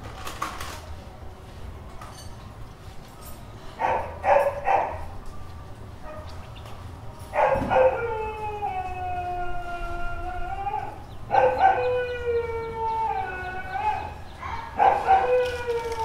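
Street dog giving three quick barks, then long drawn-out howls that slide down in pitch, two in full and a third starting near the end.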